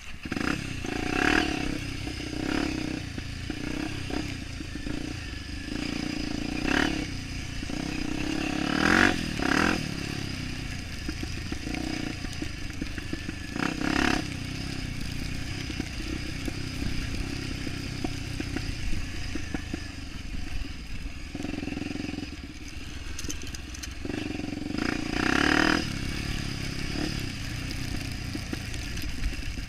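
Trail motorcycle engine running while riding off-road, with about half a dozen sharp clattering knocks breaking through it.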